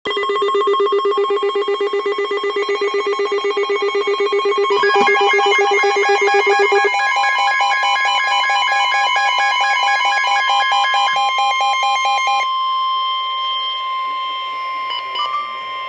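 Emergency alert tones: a fast-pulsing electronic alarm of several stacked tones, joined about seven seconds in by a steady high tone that carries on alone after the pulsing stops near the end.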